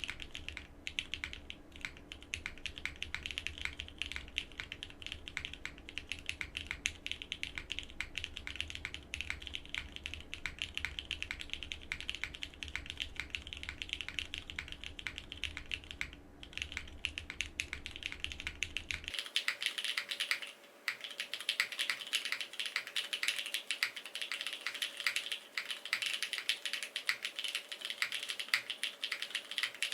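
Fast, continuous typing on a Frog mini mechanical keyboard with BCP switches and GMK Katakana keycaps: a dense stream of keystroke clacks, with a brief pause about two-thirds of the way through.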